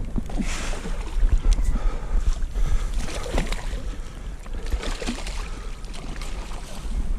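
Wind buffeting the microphone in a steady low rumble that wavers in strength, with scattered clicks and rustles of handling.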